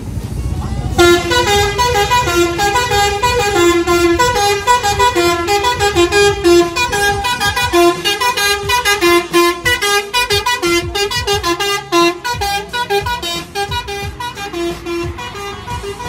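Bus 'Basuri' telolet horn playing a fast melody of short, changing horn notes, starting about a second in, over a low rumble.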